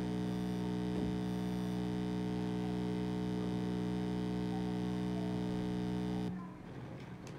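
Steady electrical mains hum, a low buzz with many overtones, that cuts off suddenly about six seconds in, leaving only faint background noise.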